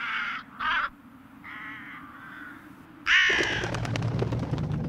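Crows cawing: four harsh caws, the last and loudest about three seconds in. With that last caw a low rumble sets in, scattered with crackling clicks.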